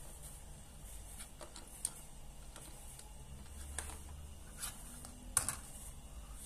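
A cat nosing and dragging plastic 3D glasses across a laminate floor: a few faint, scattered clicks and taps, the sharpest about five seconds in, over a low room hum.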